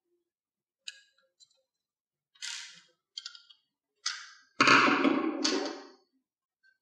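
Small clicks and plastic scrapes as a screw is backed out of the QEES RETO Shell's plastic back cover and the cover comes off. About five seconds in comes the loudest part, a scraping clatter of over a second as the screwdriver and cover are laid down on the desk.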